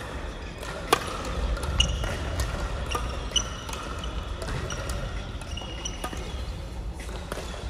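Crossminton rally in a gymnasium: sharp racket strikes on the speeder every second or so, the loudest about a second in and near two seconds. Short high squeaks of shoes on the court floor come in between, over a low hall rumble.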